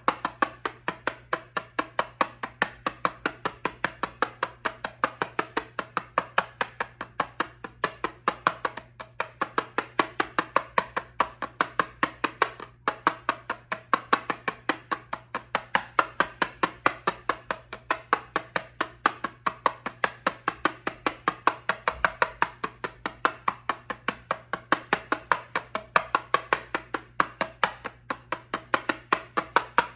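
Rapid, even tapping on an eyeshadow palette, about four taps a second, for ASMR.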